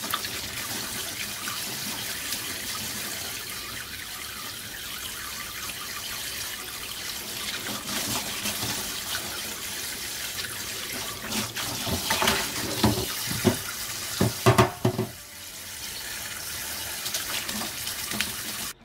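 Kitchen tap running into a glass bowl in a stainless-steel sink while garlic chives are swished and rinsed by hand, with a run of louder splashes between about twelve and fifteen seconds in.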